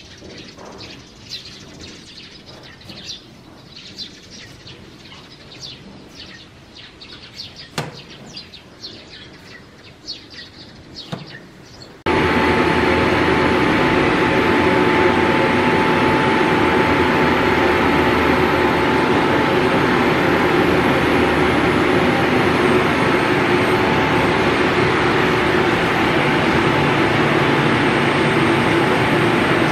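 Birds chirping over a quiet background, then about twelve seconds in a loud, steady mechanical drone with a few constant held tones starts abruptly, typical of distillery machinery running.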